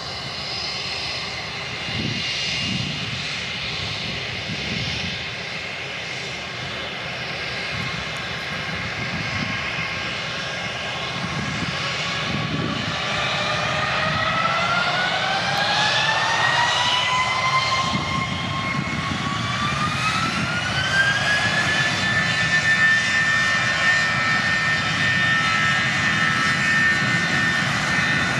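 Airbus A320-family airliner's jet engines spooling up for takeoff: a rumble under a high whine that rises in two steps over about ten seconds, then holds steady at takeoff thrust, growing louder toward the end.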